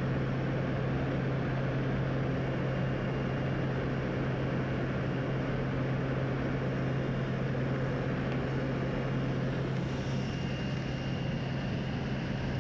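Propeller engine of a small high-wing jump plane droning steadily in the climb, heard from inside the cabin as a strong, even low hum under a rush of noise.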